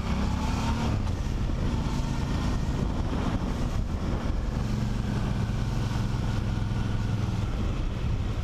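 Motorcycle engine running at low speed as the bike rolls slowly along, with steady road and wind noise; its note eases off in the middle and picks up again.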